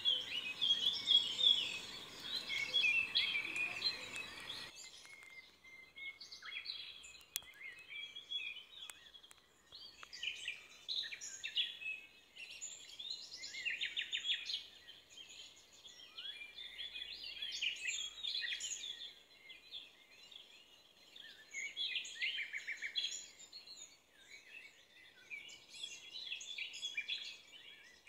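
Small birds chirping and twittering, many quick overlapping calls and rapid trills. A background hiss under them cuts off suddenly about four and a half seconds in.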